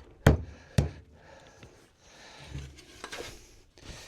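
Two sharp wooden knocks about half a second apart, then softer rubbing and scraping of wood on wood: spindles being knocked and worked into the holes of a gate rail during a dry fit.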